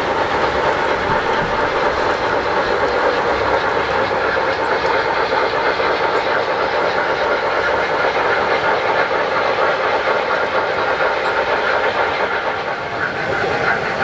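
O-scale model train running on its track, with a steady rolling clatter of wheels and motor.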